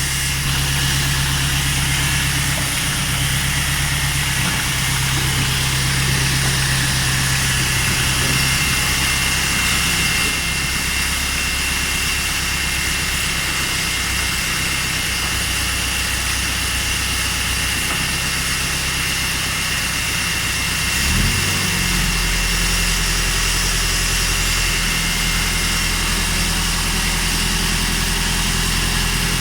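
Kubota farm tractor's diesel engine running steadily at a low speed. About 21 seconds in its note briefly wavers and shifts, then it settles into a slightly different steady run.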